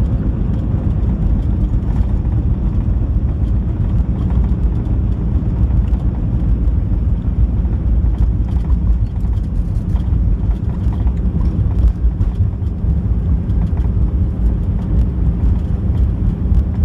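Airbus A320 heard from inside the passenger cabin: a steady, loud low rumble with no rise or fall, and a few faint rattles.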